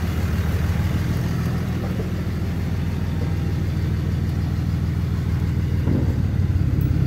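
Turbo Cummins diesel engine of a Dodge Ram 3500 running steadily at low speed as the truck crawls forward.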